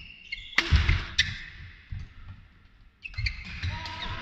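Badminton racket hitting the shuttlecock: a sharp crack about half a second in and another just after a second, with low thuds of players' feet on the court. A murmur of the crowd rises near the end.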